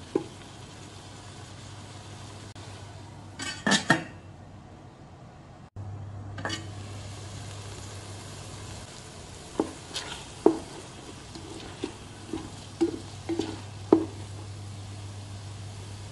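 Wooden spatula stirring and scraping fusilli pasta around an aluminium rice-cooker pot, with a cluster of knocks against the pot a few seconds in and a run of separate knocks in the second half. Under it runs a steady hiss of the pasta frying.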